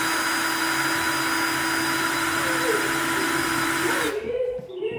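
Small power tool running steadily at high speed, grinding away the head of a stuck screw, then switching off about four seconds in.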